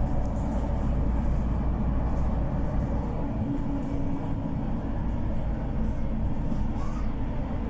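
Steady low rumble of a moving city bus, heard from inside the cabin near the front.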